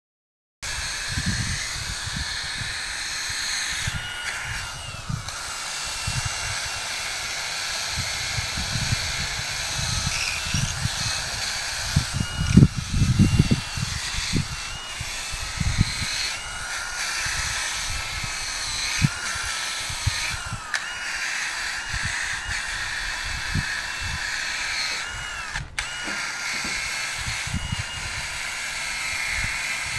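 Cordless drill spinning a wire brush against a rusty cast-iron fire hydrant, scrubbing off rust and old paint to prepare it for painting. The motor's whine wavers in pitch as the brush is pressed and eased off, over uneven low rumbling that is loudest about halfway through.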